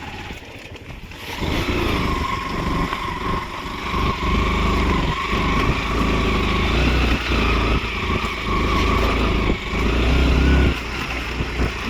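Motorcycle engine running as the bike is ridden, growing louder about a second in and staying steady after that.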